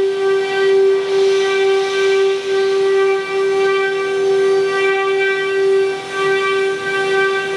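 Spindle motors of a 12-head woodworking CNC router running at speed, giving a steady whine that holds one pitch and wavers slightly in loudness.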